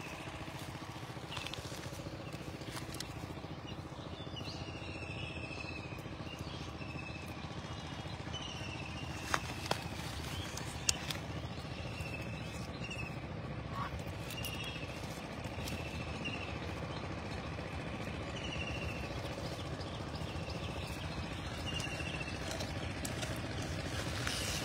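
A bird gives a short, falling chirp over and over, about every two seconds, over a steady low outdoor background noise. A few sharp clicks come near the middle.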